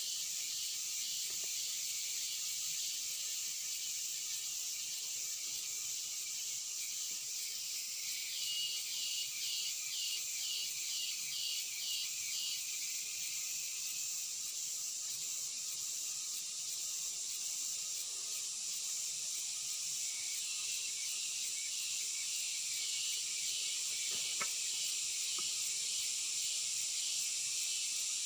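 Steady high-pitched chorus of forest insects, with a rapidly pulsing insect call joining for a few seconds partway through and faintly again near the end.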